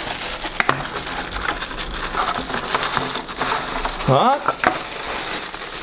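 Clear plastic wrapping crinkling and rustling with scattered clicks as a pop filter is handled and pulled out of its cardboard box.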